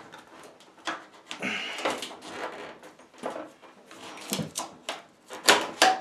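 A spatula scraping and clicking as it is worked under the edge of a washing machine's control panel to release the spring clip holding it down, with a few sharper knocks near the end.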